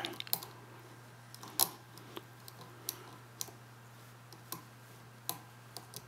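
Pick raking and lifting the pins inside the brass pin-tumbler cylinder of an old Zeiss-Ikon cabinet lock, making scattered irregular clicks and crunchy scraping from grit in the keyway. A faint steady hum runs underneath.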